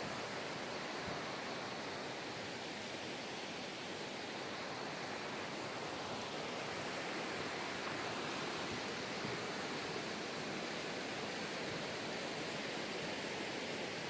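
Steady rush of water from a mountain valley stream, an even unbroken noise.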